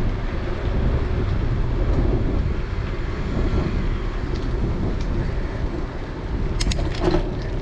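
Riding noise of a bicycle filmed on a GoPro: a steady low rumble of wind on the microphone and tyres rolling on asphalt, with a couple of short clicks near the end.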